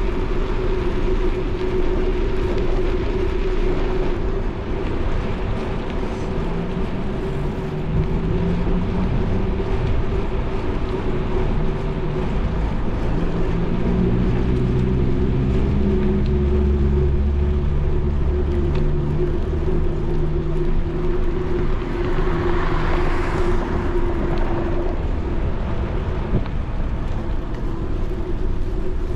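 Bicycle riding noise on a paved path: a steady low rumble with a constant hum, under car traffic on the avenue alongside. A vehicle passes by about three-quarters of the way through.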